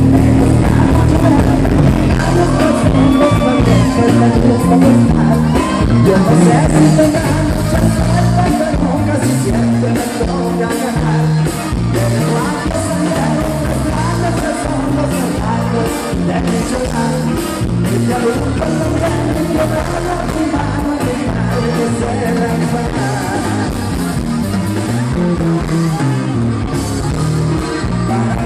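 Live Mexican regional band music with a male lead singer and accordion, played loud through a concert sound system, with a steady, regular bass beat.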